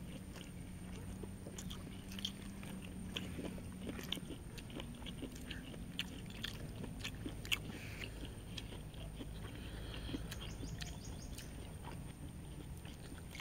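Close-miked eating of pork sisig by hand: chewing and biting with irregular small crunches and clicks, over a faint steady low hum.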